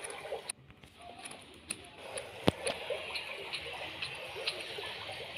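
Aquarium water bubbling and trickling, with small pops throughout and one sharp click about two and a half seconds in.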